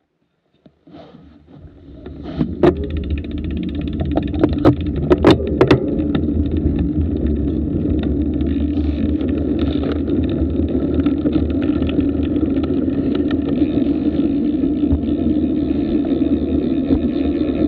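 Wind buffeting the action camera's microphone on a road-bike descent, building over the first few seconds as the bike gathers speed, then a steady rumbling rush. A few sharp clicks sound in the first six seconds.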